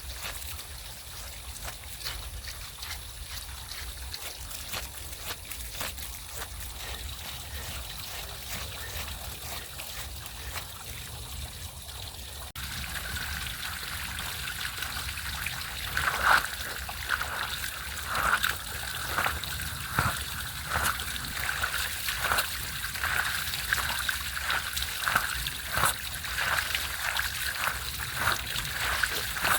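Water trickling and splashing on a soaked rug as it is worked by hand. About halfway through the sound changes abruptly to regular wet strokes, roughly one a second.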